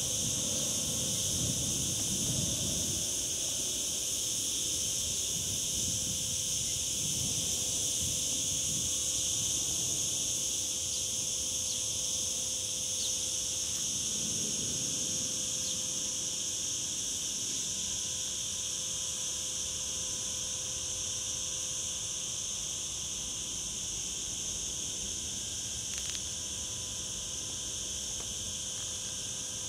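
Steady chorus of cicadas, a continuous high-pitched buzzing that holds level throughout, with a low rumble underneath in the first few seconds.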